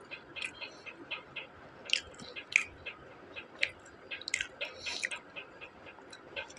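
Close-miked chewing of a crispy fried onion pakoda: irregular wet crunches and mouth clicks, the loudest a couple of seconds in.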